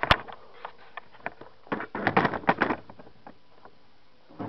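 Handling noises on a workbench: scattered sharp clicks, with a quick run of clatter around the middle, then quiet.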